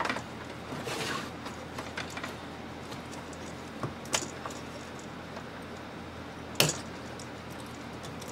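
Scattered small clicks and knocks of a plastic CFL floodlight base and twin-tube PL lamp being handled on a wooden workbench. The loudest is a sharp click about six and a half seconds in.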